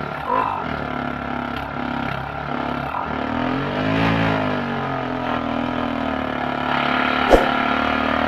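Portable electric piston tyre air compressor running steadily. Its motor pitch rises and falls once about halfway through, and there is a single sharp click near the end.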